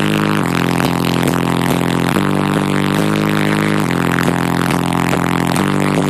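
Car audio system with four 15-inch subwoofers playing music loudly: deep sustained bass notes that change pitch about once a second.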